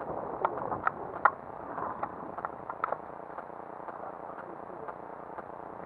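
A few light clicks and knocks as fishing gear is handled on bare rock, over a steady outdoor hiss; the clicks stop about three seconds in.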